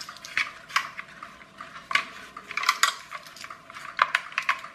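Irregular light clicks and taps of hard plastic as the chassis of a clockwork toy car is handled and probed with a small metal screwdriver, the strongest taps coming in the middle and about four seconds in.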